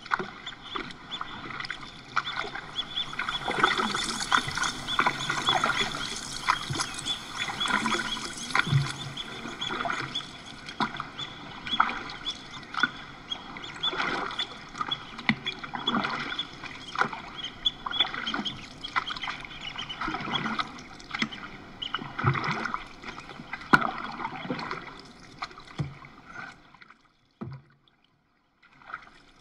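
Paddle strokes splashing in river water and water lapping against a wooden canoe, irregular splashes every second or two. It fades out near the end.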